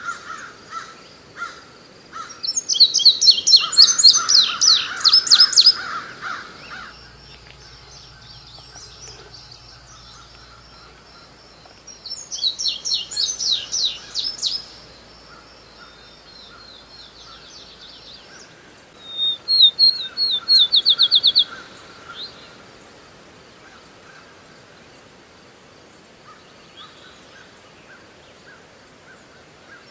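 Songbird singing: three loud bursts of rapid, high trilled phrases, each a few seconds long and spaced several seconds apart, with quieter chirps in between.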